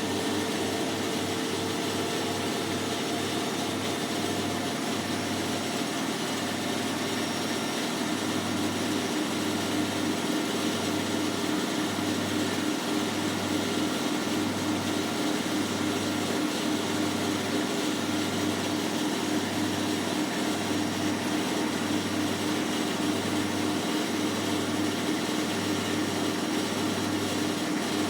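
Hotpoint NSWM 843C inverter-motor washing machine on its spin cycle: a steady whirring hum with a low throb that quickly settles to about once a second. The owner says this machine sometimes makes a scraping noise when spinning.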